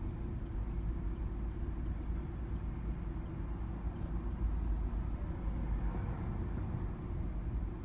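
Steady low rumble of a car driving in city traffic, heard from inside the cabin, with a brief hiss about halfway through.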